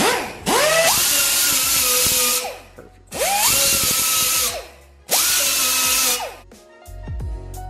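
Small air-powered sander with a yellow abrasive disc, run in three bursts. Each burst spins up with a rising whine, holds a steady high whine over a hiss while it grinds, then winds down. It is taking the punched rocker-panel flange down to bare metal for spot welding. Background music comes in near the end.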